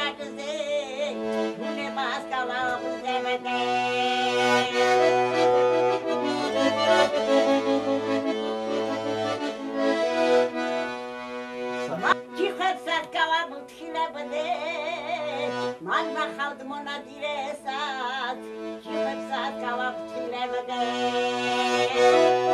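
Accordion playing a slow traditional tune over held chords, with a wavering melody above them. The chords change every few seconds and break off briefly about halfway through.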